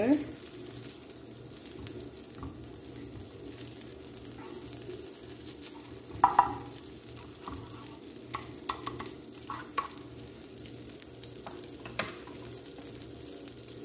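Butter melting and sizzling gently in a nonstick frying pan while a wooden spatula stirs it, with scattered clicks and scrapes of the spatula on the pan, the loudest about six seconds in.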